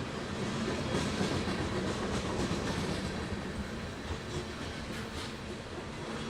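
Train rolling on rails: a steady low drone with wheels clicking over the rail joints.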